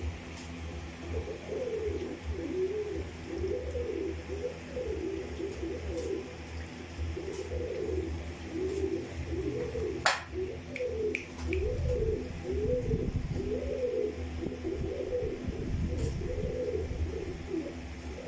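Fantail pigeons cooing, a continuous run of rising-and-falling coos about one a second. A single sharp click sounds about ten seconds in.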